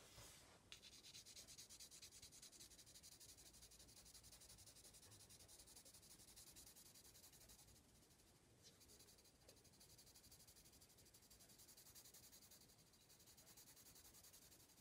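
Faint scratching of a graphite pencil shading on paper in rapid back-and-forth strokes, laying down tone, with a brief pause about halfway through.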